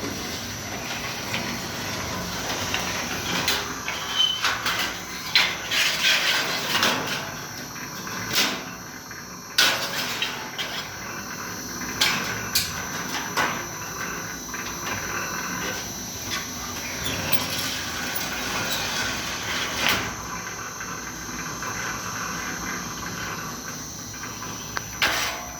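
Metal cross- and lengthwise-cutting machine working sheet metal: continuous running noise with frequent sharp knocks and clicks.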